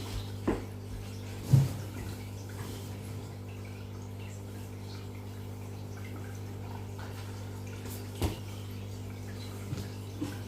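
Steady low hum, with a few short clicks and knocks over it and one louder, brief low sound about a second and a half in.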